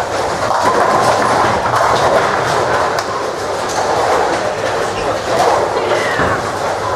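Ten-pin bowling alley noise: bowling balls rolling down the lanes and pins clattering, a steady rumble with a few sharp knocks from several lanes in play.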